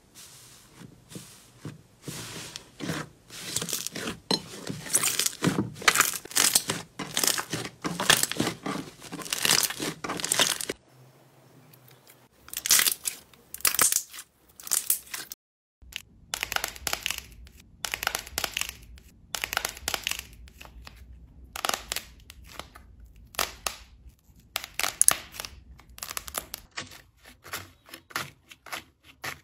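Slime being pressed, squeezed and kneaded by hand: dense runs of sticky crackles, pops and squelches, dropping out briefly about halfway through.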